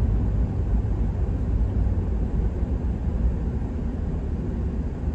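Steady low rumble of road and engine noise inside the cabin of a pickup truck driving at highway speed.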